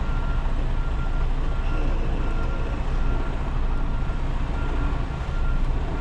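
Semi truck's diesel engine running at low speed while backing into a loading dock, with a backup alarm beeping at a steady, repeating pitch.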